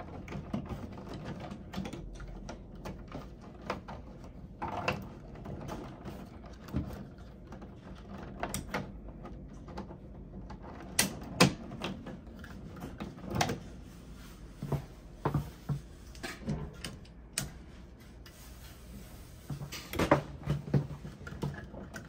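Irregular small clicks and taps of plastic and wiring being handled at a wall switch box, with the snap of a light switch rocker being pressed; a few louder clicks stand out in the middle and near the end.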